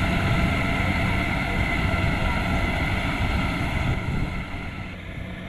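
Kubota DC-70 Plus rice combine harvester running steadily: a diesel engine drone with a steady high tone above it, growing quieter in the last second or so.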